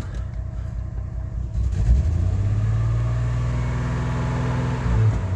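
GMC Envoy engine running rough at idle, then raised to a higher speed about one and a half seconds in, held steady for about three seconds and let back down near the end. The engine is running like crap and lacking power, with a camshaft position sensor code and a suspected misfire.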